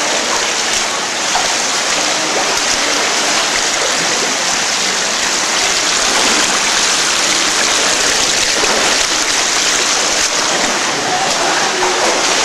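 Steady rush of flowing water from an underground cave stream.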